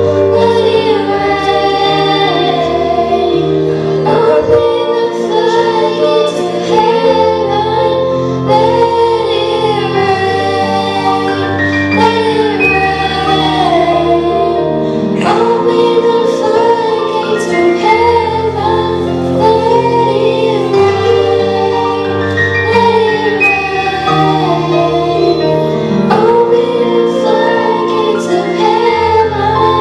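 Girls singing into microphones, amplified through a PA, over instrumental backing with a bass line that holds each note for a couple of seconds before moving to the next.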